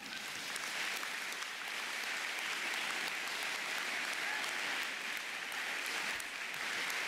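Large audience applauding, building up quickly over about the first second and then holding steady.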